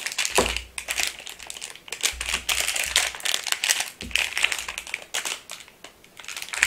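Thin clear plastic bags crinkling on and off as they are handled and pulled open, with a few dull bumps in between.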